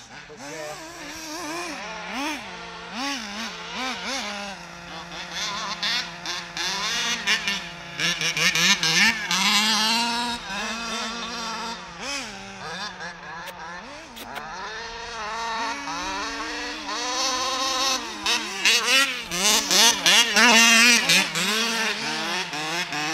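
HPI Baja 5B 1/5-scale RC buggy's reed-cased two-stroke petrol engine revving up and down again and again as the throttle is worked, the pitch rising and falling with each burst, loudest in two stretches, partway through and again near the end.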